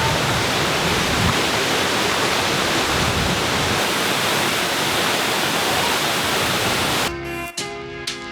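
Large waterfall: a steady, loud rush of falling water that cuts off abruptly about seven seconds in, when music with a beat begins.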